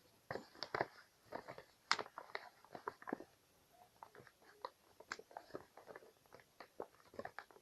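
A sheet of paper being folded and creased by hand: faint, irregular crackles and rustles of the paper.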